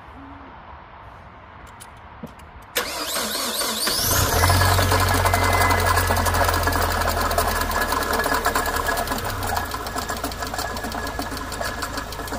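Mazda 626 engine cranked on the starter a little under three seconds in, catching about a second later and running with a loud, fast, even ticking rattle. The water pump is rattling, and the owner wonders whether the valve lifters are tapping as well.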